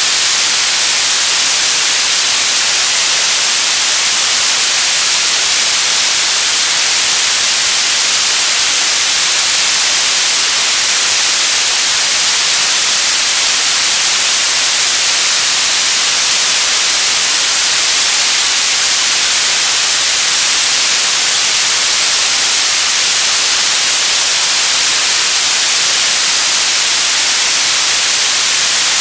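Radio static: a steady, loud hiss, strongest in the high frequencies, with no tones or changes.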